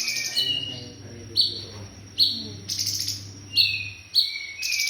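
A cungkok cricket's high, fast-pulsing buzzing trill breaks off shortly after the start and comes back near the end. In the gap there are four sharp, loud chirps that each drop in pitch, under faint low voices.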